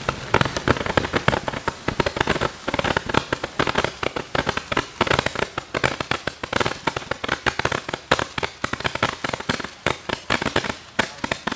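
Consumer fountain-with-Roman-candle firework (McFireworks MC620 Stargazer) firing: a dense, irregular run of sharp pops and crackles, many a second, over a steady hiss.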